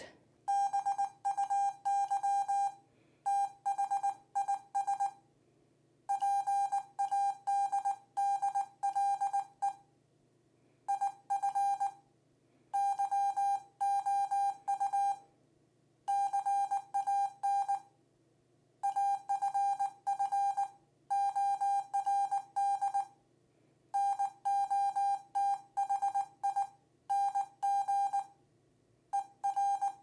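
Morse code sidetone from an electronic keyer, sent with a Magic Rabbit QU-21C dual-lever paddle: a steady mid-pitched beep keyed into short and long marks, in word-length runs with pauses of about a second between them.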